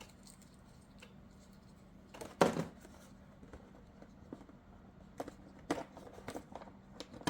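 Handling noises of a plastic RC truck light bar and body parts: scattered small clicks and taps, with one louder knock about two and a half seconds in. A faint steady hum runs underneath.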